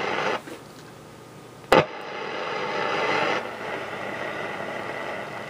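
Static hiss and crackle from the loudspeaker of a Philips 470A valve radio, which the owner puts down to a wave band switch that needs cleaning. The hiss drops away after about half a second, a single sharp crackle comes just under two seconds in, and the hiss then swells back and carries on.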